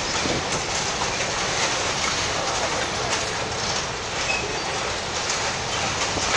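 Freight boxcars rolling past, their steel wheels on the rails making a steady rumble with a clickety-clack over the rail joints.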